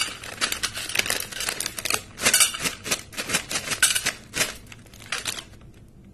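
Kellogg's Chocos cereal pieces poured and shaken from the packet into a stainless steel bowl, clicking and rattling on the bare metal in quick uneven patters. The pouring stops about five and a half seconds in.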